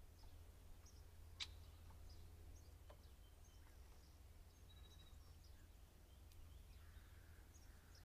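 Near silence: faint, scattered short chirps of wild birds over a low steady rumble, with one sharp click about a second and a half in.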